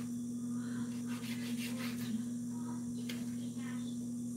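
A steady low electrical hum, with faint rustling and a few light clicks of handling.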